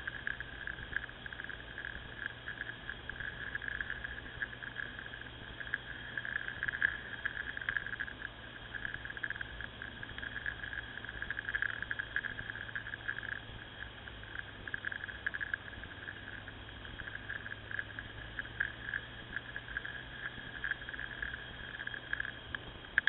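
Ducati Scrambler motorcycle under way, heard muffled through a bike-mounted camera: a steady low engine hum beneath a dense, fluttering crackle of wind and vibration. The hum drops away near the end.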